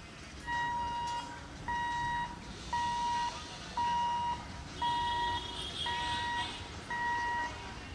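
Railway level-crossing warning buzzer beeping steadily at one pitch, about one beep a second, each beep lasting about half a second.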